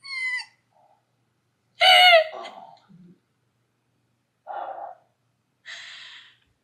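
A woman laughing: a short high-pitched squeal of laughter at the start and a louder one about two seconds in, then breathy gasps and exhales as she catches her breath.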